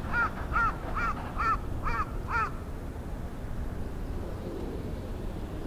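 A bird calling in a quick run of six arched calls, about two a second, which stops about two and a half seconds in. A steady low rumble continues underneath.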